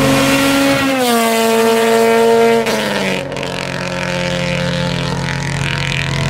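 Car engine held at high revs, its pitch dropping twice, about a second in and again near three seconds, then running steadily at a lower pitch.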